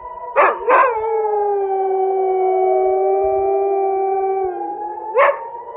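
A dog howling along with a wailing air raid siren: two short sharp cries about half a second in, then a long steady howl for several seconds, and another sharp cry near the end.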